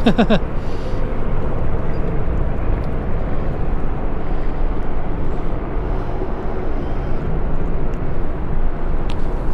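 Wind buffeting an action camera's microphone: a steady low rumbling noise that rises and falls. There is a single short click near the end.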